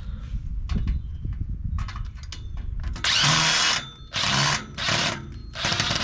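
Power drill driving out a screw in about four short bursts, each under a second, in the second half. Before them come clicks and handling knocks.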